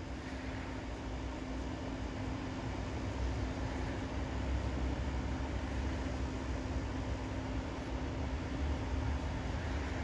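Steady outdoor background noise: a low rumble that swells in the middle and a faint steady hum.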